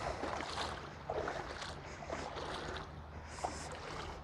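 River water sloshing and splashing in irregular swishes, with a steady low rush of flowing water underneath.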